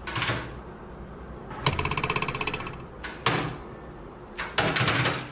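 A dog's paws clattering on a computer keyboard in short bursts, with a rapid rattling run of key presses about two seconds in.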